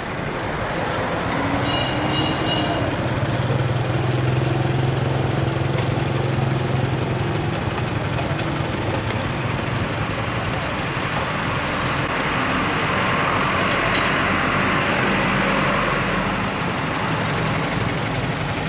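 Motorbike engine running at low speed, with street traffic noise around it; a steady low hum throughout.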